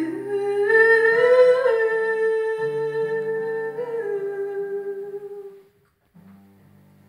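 A woman singing one long wordless note into a microphone, rising slightly about a second and a half in, over acoustic guitar. The voice stops about five and a half seconds in, leaving only faint guitar.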